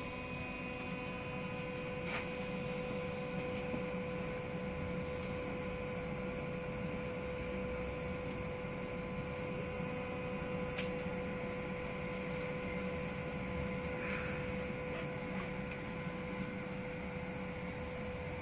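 Steady electrical hum with a fixed pitch inside a tram, from the tram's onboard equipment, over a low rumble. Two faint clicks come about two and eleven seconds in.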